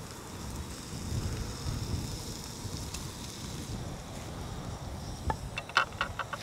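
Wind rumbling on the microphone over a steady high hiss from eggs frying in a pan on a portable gas camp stove. About five seconds in, a quick run of metallic clicks and scrapes as a spatula works in the frying pan.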